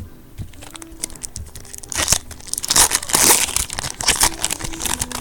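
A trading-card pack wrapper being torn open and crumpled. Scattered crackles build to a dense, loud run of tearing and crinkling from about two seconds in until past four seconds.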